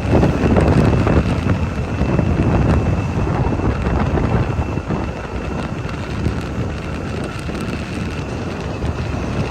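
Wind buffeting the microphone over the running noise of a vehicle, with a faint steady high tone throughout.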